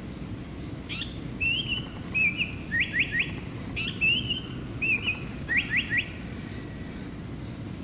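Lanyu paradise flycatcher (the Lanyu race of the black paradise flycatcher) singing the same phrase twice: a short high note, two slurred whistles, then three quick rising notes, over a steady low rumble.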